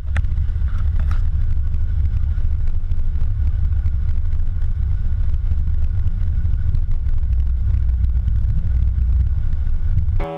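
1955 Ford Thunderbird's V8 engine running, a steady loud low rumble, with a couple of clicks in the first second or so.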